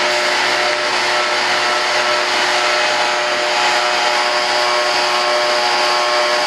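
Shop vac running steadily, a constant motor whine over a rush of air.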